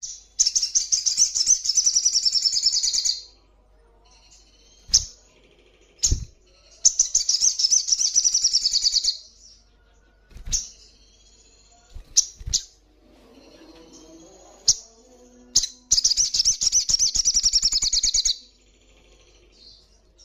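Young olive-backed sunbird singing: three long, rapid, high trilled phrases, with a few short sharp clicks in the pauses between them.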